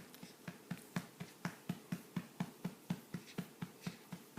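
A hand patting a baby's back, about four light pats a second in an even rhythm, to bring up a burp.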